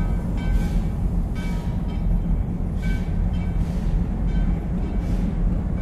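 Freight cars rolling past on the rails: a steady low rumble, with short metallic ringing clanks from the wheels about once a second.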